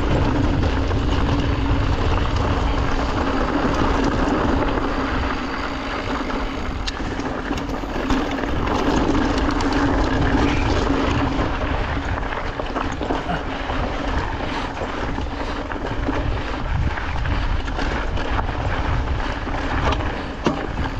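Yeti SB 150 full-suspension mountain bike being ridden on a dirt trail: steady rush of wind and tyre noise with frequent small knocks and rattles from the bike over the ground, picked up by a chest-mounted action camera.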